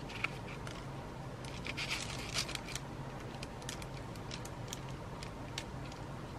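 Faint light ticks and soft scrapes of a fine-tip glue bottle drawn along the paper edges of a pocket being glued down, over a low steady hum.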